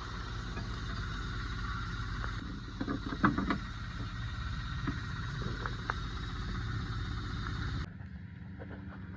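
Steady low hum of workshop background with a few light metallic clicks about three seconds in, from tools at work on the engine during timing chain removal. The background changes abruptly near the end.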